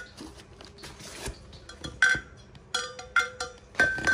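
Insulated beer tumblers being handled: a series of sharp clinks and knocks, each with a short ringing tone. There is one near the start, one about two seconds in, and a quick cluster in the last second and a half.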